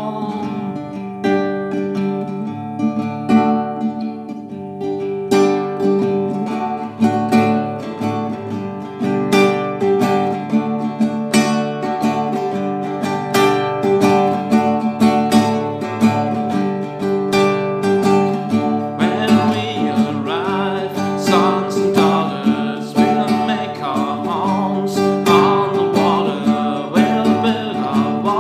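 Acoustic guitar strummed in a steady rhythm, an instrumental passage between verses of a song. About two-thirds of the way in, a wordless vocal line joins the guitar.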